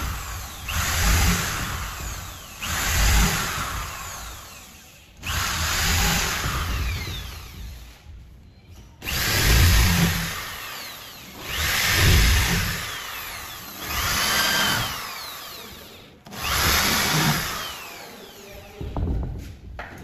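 Corded electric drill boring into the edge of a wooden door, run in about seven separate bursts of one to two seconds each. Each burst starts sharply and tails off before a short pause.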